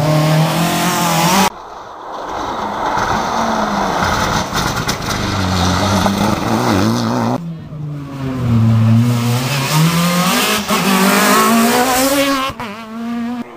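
Rally car engines revving hard as the cars pass at speed, the pitch climbing and falling with gear changes. The sound cuts off abruptly twice as one passing car gives way to the next.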